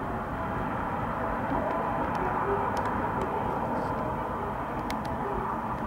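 Steady outdoor background rumble with a faint held hum and a few light clicks.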